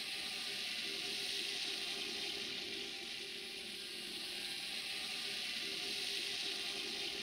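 Small camera drone's propellers hovering low: a steady hiss with a faint hum beneath, swelling slightly twice.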